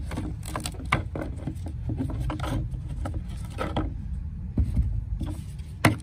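Handling sounds from an old cabin air filter being pulled out of its plastic frame: scattered scrapes and clicks of the plastic and the pleated filter, with one sharper click near the end, over a steady low rumble.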